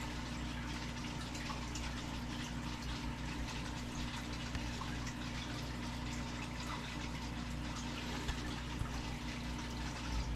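Room tone: a steady low hiss with a constant hum, and faint clicks and rubbing as a hard plastic grading slab is turned over in the hands.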